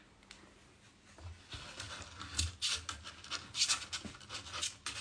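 Irregular scratching and rubbing with soft low thumps, starting about a second in: a two-week-old Great Swiss Mountain Dog puppy squirming and scrabbling on a weighing scale.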